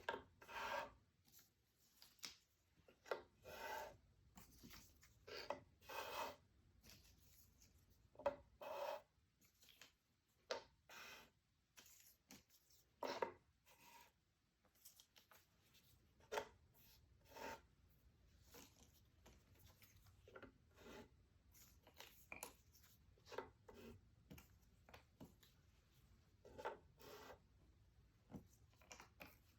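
Jigsaw puzzle pieces being handled, slid and pressed together: short scratchy rubs and clicks at irregular intervals, a few every couple of seconds.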